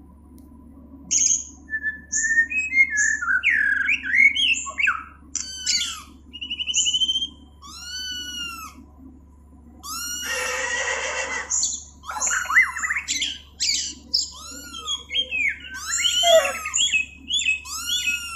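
Recorded birdsong played as an animal sound clip: a busy mix of chirps, whistles and repeated arching calls, with a harsh squawk lasting about two seconds around ten seconds in, over a faint low hum.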